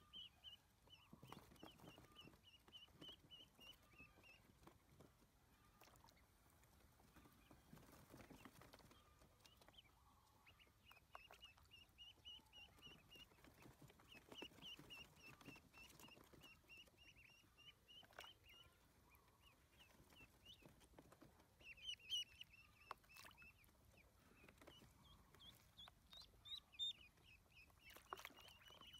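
Ducklings peeping in quick, high chirps, several a second, with short gaps, and occasional light splashes and knocks as they paddle in a plastic tub of water.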